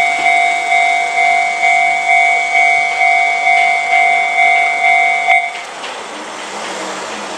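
Japanese railway level-crossing alarm ringing its electronic two-tone ding at a little under two rings a second. It cuts off with a click a little over five seconds in, leaving a quieter steady noise.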